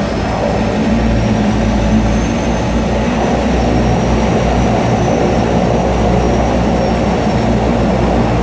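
De Havilland Canada DHC-6 Twin Otter seaplane's turboprop engines running at low power as it taxis on the water, heard from inside the cabin: a loud steady drone with a faint high whine above it.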